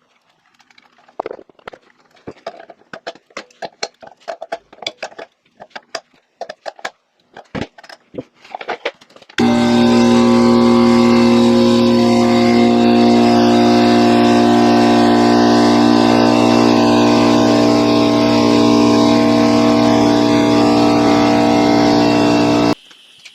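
Scattered clicks and taps of handling, then about nine seconds in the Coleman Powermate 11-gallon air compressor starts and runs loud and steady at one constant pitch for about thirteen seconds before stopping suddenly.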